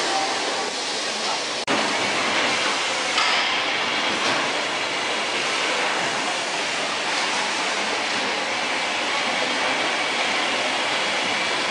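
Steady mechanical din of a packaging line running: roller conveyors, a box lift and carton machines. It breaks off for an instant about a second and a half in.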